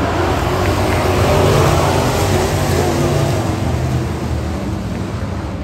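A pack of dirt-track Pro-Truck race trucks running at speed through a turn, several engines blended into one loud, steady engine sound. It eases off a little about four seconds in as the trucks move away down the straight.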